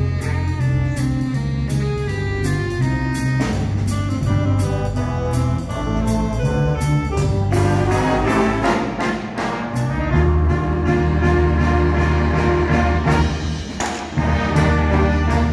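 Brass ensemble of trumpets and trombones playing a jazzy tune in harmony over a steady beat, with sustained low bass notes underneath.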